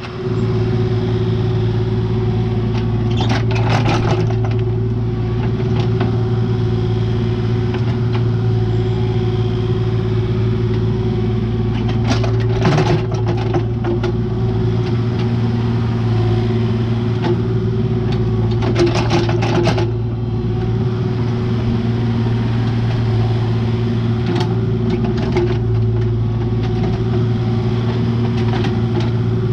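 An engine running steadily at a constant speed, with a few short bursts of rattling and knocking about 3, 12 and 19 seconds in.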